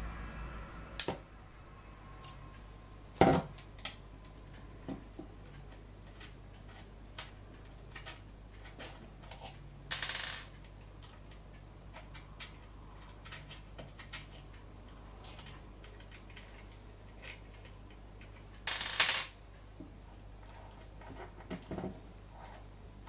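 Small metal parts clicking and clinking as scope rings and their screws are handled and turned around on the rifle, with two short scraping rustles, one about ten seconds in and one a few seconds before the end.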